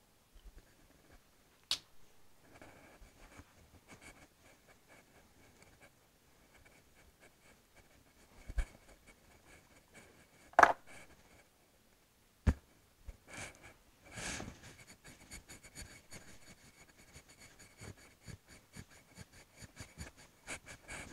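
Cloth wiping a glass lightboard: faint rubbing strokes that grow busier and more continuous from about two-thirds of the way in. Four sharp knocks or taps come in the first half, the loudest about halfway through.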